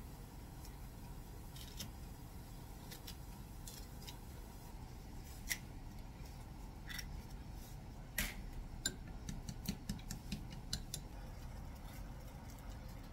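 Kitchen scissors snipping radish-greens kimchi, then a scatter of quiet clicks and taps: eggs cracked on the rim of a ceramic bowl and beaten with chopsticks, with a run of quick ticks about eight to eleven seconds in.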